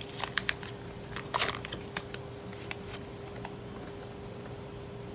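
Trading cards being flicked through and slid against each other, with a few quick rustling flicks in the first two seconds, then quieter handling over a steady hum.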